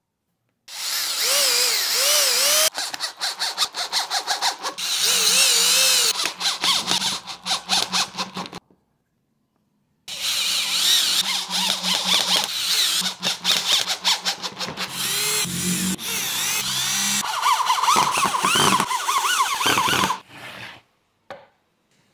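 Cordless drill driving screws into plywood, its motor speed rising and falling in stop-start pulses. It runs in two spells of about eight and ten seconds with a short pause between them.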